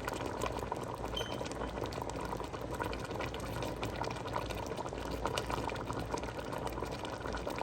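A pot of beef and vegetable soup boiling, a steady bubbling full of small pops.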